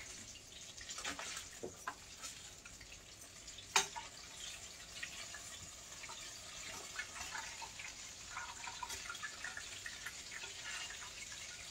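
Chicken pieces frying in hot oil: a faint, steady sizzle with scattered crackles, and one sharp click about four seconds in.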